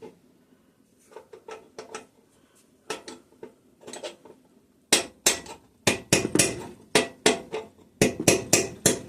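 Hammer tapping a punch on a connecting rod bolt to drive a piston out of a Kohler opposed-twin engine's cylinder, forcing the rings past the ridge at the top of the bore. A few light metal clinks come first, then from about five seconds in a run of sharp metal taps, about two a second, coming faster near the end.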